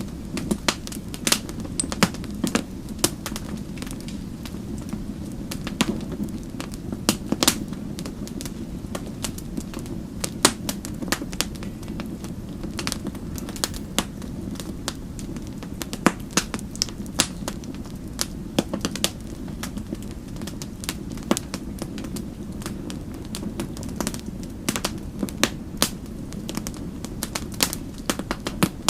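Wood fire burning in a fireplace: a steady low rumble with frequent sharp, irregular crackles and pops.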